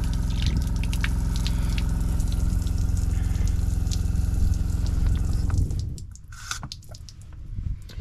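RV water pump running with a steady hum while the outdoor shower head sprays water onto concrete, flushing bleach sanitizing solution out of the line. Pump and spray stop suddenly about six seconds in.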